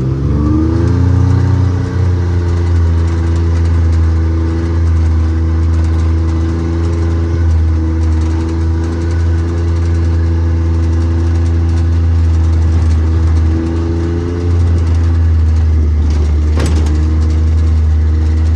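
Vehicle engine running while driving, its pitch rising at first and then holding steady, easing off briefly and picking up again near the end. A single short knock about three-quarters of the way through.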